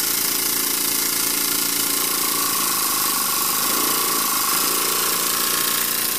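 Homemade steam engine with a new piston ring running fast at full throttle, over a steady hiss of escaping steam. Its beat shifts in pitch partway through, and a steady high whine comes in about two seconds in.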